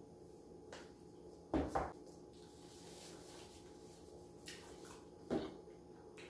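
Table-top knocks from handling food and containers during a meal: two sharp knocks close together about one and a half seconds in, and another near the end, with a soft rustle and a few light ticks between.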